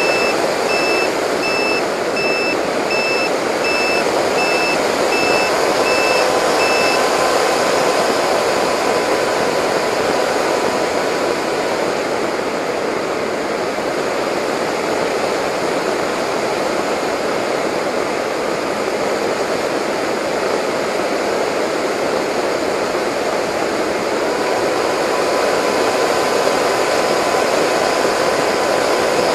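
Onboard sound of an RC delta flying wing in flight: a steady rush of wind and propeller noise, with a faint motor whine that comes and goes. A regular high-pitched beeping sounds over it for the first seven seconds or so, then stops.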